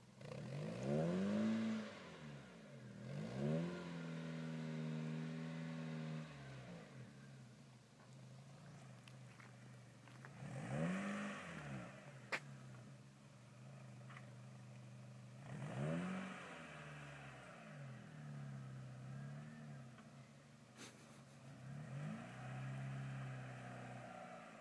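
Mazda MX-3's engine being revved again and again, its pitch rising and falling about five times, with the revs held steady for a couple of seconds between some of the blips. Two short sharp clicks come in the middle.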